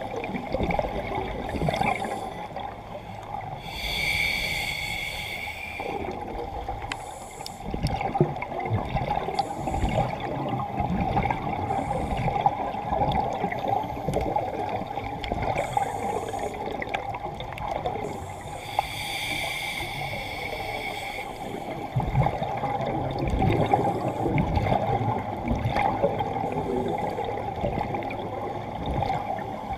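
Scuba regulator breathing heard underwater: two long hissing inhales, one about four seconds in and one near twenty seconds, with the bubbling and gurgling of exhaled air rising past the mask in between.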